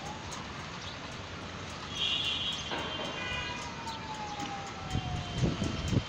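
Steady rushing cabin noise with a thin whine. Halfway through, the whine slides slowly down in pitch. About two seconds in there is a brief cluster of higher tones, and there are a few low thumps near the end.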